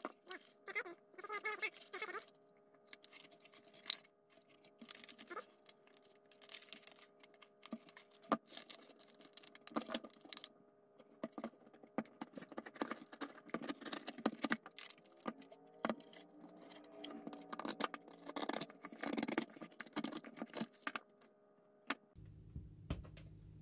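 Quiet, irregular crackling, rustling and light clicks of PSA-backed sandpaper being adjusted and pressed around a cardboard sanding drum.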